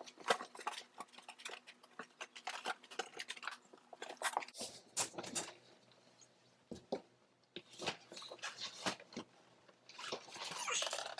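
Food packets and boxes rustling and knocking as they are handled and sorted: many short, irregular clicks and taps, with a longer stretch of rustling near the end.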